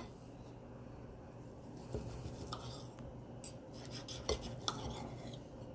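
Table knife and fork clicking and scraping against a ceramic plate while slicing a cooked duck breast, a scattering of faint, sharp clicks.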